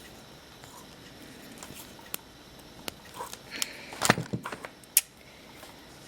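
Scattered small clicks and taps of handling craft wire and a small wire-cutting tool, a cluster of them about four seconds in and a single sharp click about five seconds in.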